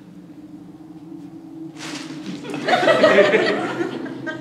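Audience laughing, swelling up about two seconds in and loudest a second later before dying down, over a steady low hum.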